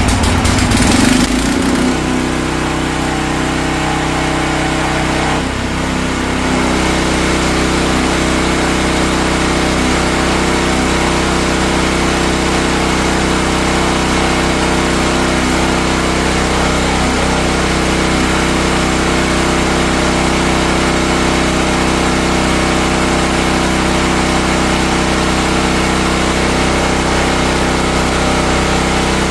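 Petrol engine of a 4400 psi Dewalt pressure washer starting up and running steadily, run to test the pump's pressure after an adjustment for low pressure. Its sound dips briefly and changes note about five or six seconds in, then holds steady.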